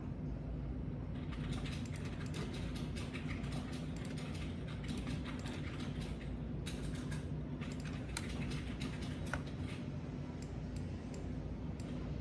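Typing on a computer keyboard: fast, irregular key clicks that start about a second in, over a steady low hum.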